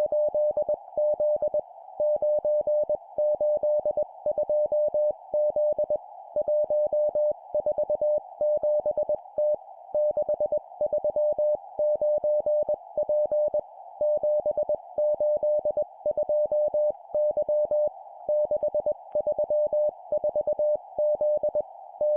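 Morse code (CW) sent at 20 words per minute: a single steady mid-pitched tone keyed on and off in quick dots and dashes, in four-character groups of three numbers and a letter with short pauses between, over a steady narrow hiss.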